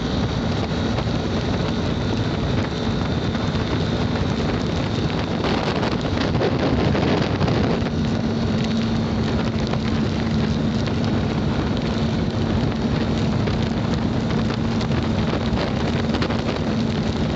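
Motorcycle riding in heavy rain: wind buffets the microphone over the engine's steady hum and the hiss of rain. The engine note swells around six to seven seconds in, then holds steady.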